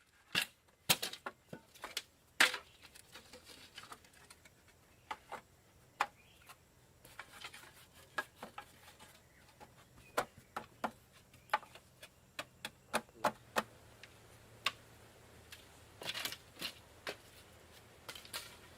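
Irregular sharp clicks and light knocks, some singly and some in quick clusters, like something being tapped or handled by hand.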